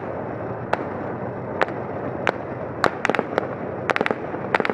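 Small-arms gunfire during an infantry assault: single sharp shots at first, then quick clusters of shots that come faster from about three seconds in. Underneath runs a steady engine noise from the tank.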